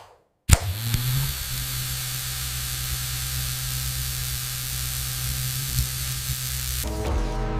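A sharp click, then a steady hissing noise over a low hum; music comes in near the end.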